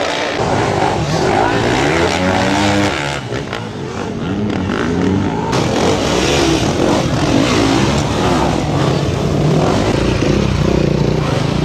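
Enduro dirt bike engines revving in short bursts, their pitch rising and falling as the bikes are worked up a steep slope and over boulders. In the second half several bikes run at once.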